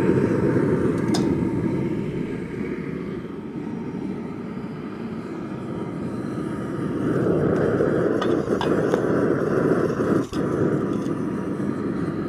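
Just-lit gas forge burner running with a steady rushing sound. It swells about seven seconds in and dips for a moment shortly before the end.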